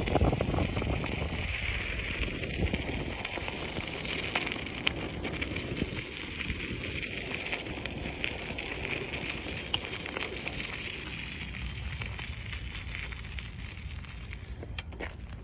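Bicycle tyres crunching and crackling over loose desert gravel while riding, with wind rumbling on the microphone and scattered small clicks of stones.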